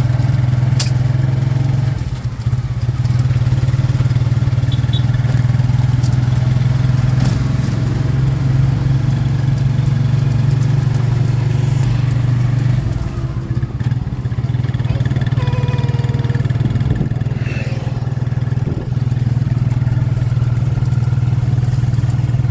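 Motorcycle engine running steadily while riding, a continuous low drone that eases briefly about two seconds in and again around thirteen seconds.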